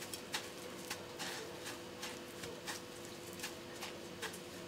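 Faint, irregular crackling and crunching of dry breadcrumbs as a hand presses a raw chicken breast strip into them to coat it, over a faint steady hum.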